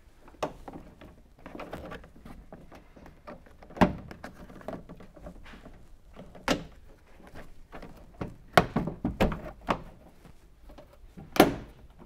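Carpeted plastic trunk-lid trim cover being pressed onto the underside of a trunk lid: scattered knocks and clicks as its tabs are fitted into their holes, the loudest about four seconds in and again near the end.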